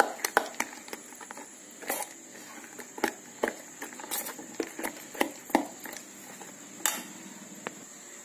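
Thick, stiff rice-and-jaggery batter being stirred in a stainless steel bowl with a metal spoon. The spoon clicks and taps irregularly against the bowl, about one or two times a second, and stops near the end.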